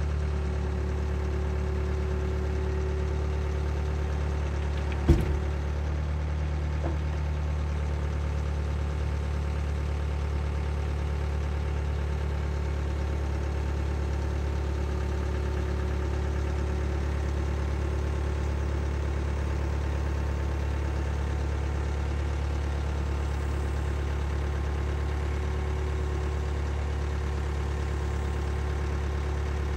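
Bobcat skid-steer loader's engine running steadily while it holds a roof truss aloft, with one sharp clank about five seconds in.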